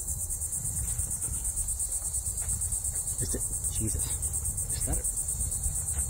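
Insects singing in a steady high-pitched chorus, a fast pulsing buzz, over a low rumble.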